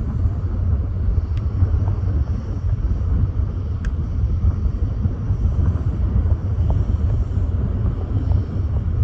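Strong wind buffeting the microphone: a steady, loud, low rumble with a couple of faint ticks.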